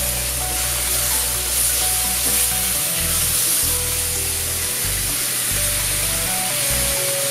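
Vegetables sizzling in a cast-iron skillet, a steady frying hiss, over background music with a bass line.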